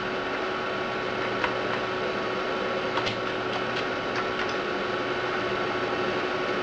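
Steady hiss and whine of an Amiga 4000's hard drive and power supply, with a few scattered light clicks.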